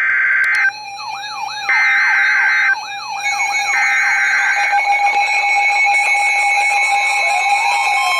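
Emergency Alert System SAME header: three one-second bursts of buzzy digital data tones about a second apart. Layered over them is a fast, repeating siren-like sweeping alarm with a steady alert tone, which carry on after the bursts end.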